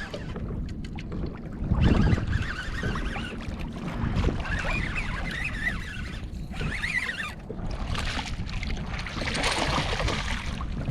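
Wind buffeting the microphone with a gusting low rumble, over water moving around a kayak; a hissing swell of water noise comes near the end.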